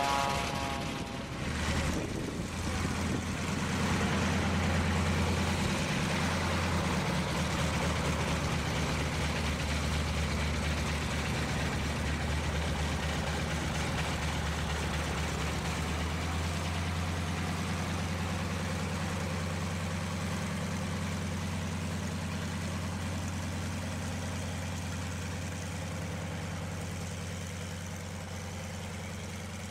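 Vintage high-wing monoplane's radial engine running at idle and low taxi power: a steady low engine note that comes in about two seconds in and slowly fades toward the end.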